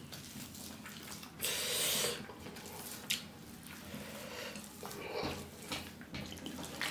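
Close-up hand squishing and mixing cooked rice on a steel plate: soft wet squelches and light scrapes of fingers on the metal. There is a short hissy rush about a second and a half in, and near the end liquid is poured from a bottle onto the rice.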